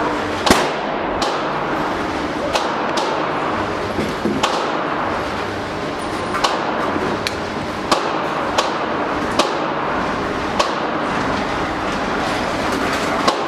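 About a dozen sharp cracks at uneven intervals, roughly one a second, over a steady din at an indoor pistol range, with the first and loudest about half a second in.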